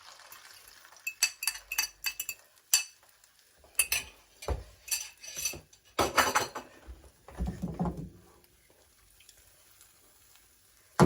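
Metal kitchen utensils clinking and knocking against a bowl and pan in an irregular run of sharp, ringing clinks, then heavier knocks and clatter, as the eggs go into the pan.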